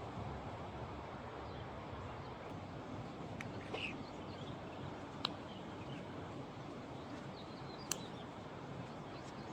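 Steady rush of a stream running high after heavy rain, with faint bird chirps and two sharp clicks, about five and eight seconds in.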